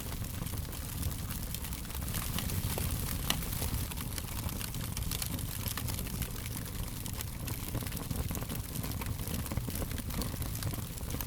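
Fire crackling: frequent small pops and snaps over a steady low rush of burning, with the sharpest snap about three seconds in.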